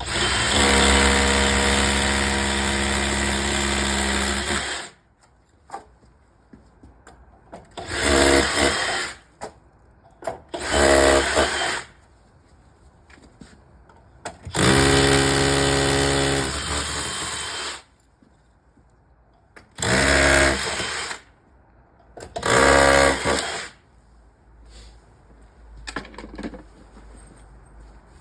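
Power drill running in about six separate bursts, boring through the centre holes of recycled-plastic wall pods into a concrete wall. The first run lasts about five seconds; the rest are shorter, one to three seconds each, with pauses between them.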